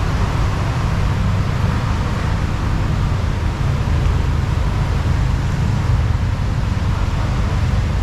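A steady low rumble with no separate events, the kind of even background drone of road traffic or running machinery.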